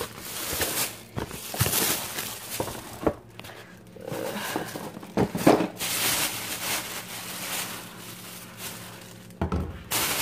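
Plastic grocery bag rustling while boxes and a plastic jug are set down on a stone countertop, with a string of irregular knocks and a louder knock near the end.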